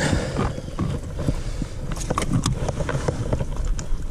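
Irregular clicks and soft knocks of a small codling being unhooked by hand on the floor of an inflatable boat, over a steady low rumble.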